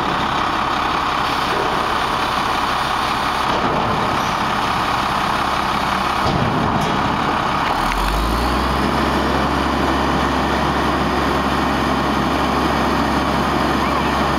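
Front-loading garbage truck's diesel engine and hydraulics running steadily as the lift arms lower the emptied dumpster back to the ground, with a couple of sharp knocks about six seconds in. About eight seconds in a deeper steady hum comes in and holds.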